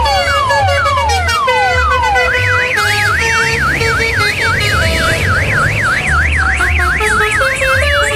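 Electronic siren effect: a falling sweep repeating about twice a second, switching a little over two seconds in to a fast up-and-down warble of about three cycles a second. It plays over music with a melody and a steady bass beat.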